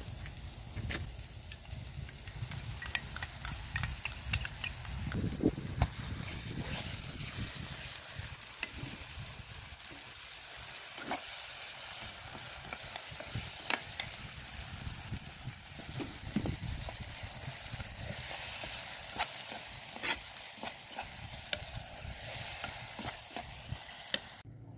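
Chopped onion, herb and barberry filling sizzling in a frying pan over wood embers, with a metal spoon stirring and scraping against the pan in sharp clicks.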